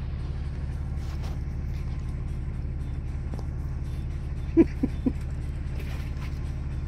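Fishing boat's engine running steadily, a low hum. About four and a half seconds in, three short, pitched squeaks sound close together.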